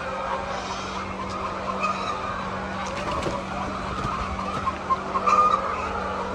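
Chickens clucking and squawking over a steady hum, with a burst of short clucks about five seconds in.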